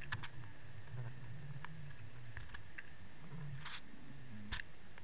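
Underwater sound picked up by a submerged camera: a steady low hum with a faint high whine, and scattered clicks and ticks. There is a short hiss about three and a half seconds in and a sharp knock near the end.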